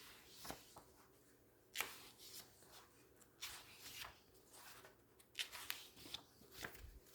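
Faint paper rustling as the pages of a magazine are flipped, a handful of soft swishes at irregular intervals.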